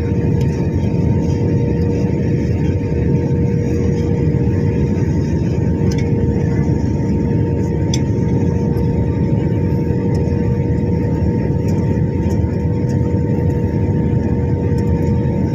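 Steady cabin noise inside a jet airliner: a loud, even low rumble of engines and airflow with a steady hum tone over it.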